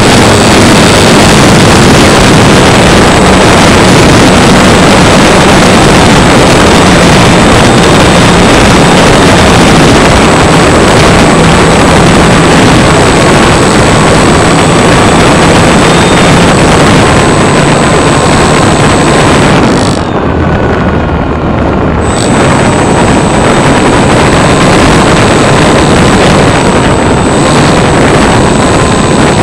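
Loud, steady rush of propeller wash and air over the airframe, with the thin whine of the electric motor wavering in pitch, picked up by a camera inside the cockpit of an E-flite PT-17 Stearman radio-controlled biplane. About twenty seconds in the whine falls and the hiss briefly thins out, then both come back.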